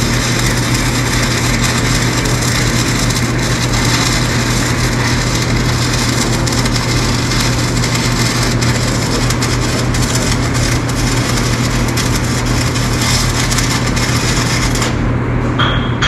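Arc welding on steel brackets: a steady, crackling hiss over a low hum. It stops near the end and is followed by a sharp metallic tap.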